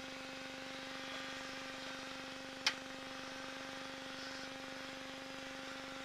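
Challenger II ultralight's engine idling with the propeller turning, a steady, even hum. A single sharp click about two and a half seconds in.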